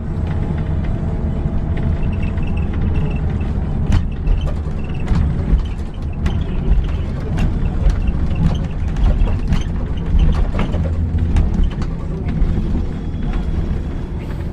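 Steady low rumble of a bus driving, heard inside the passenger cabin, with frequent light rattles and clicks from the interior.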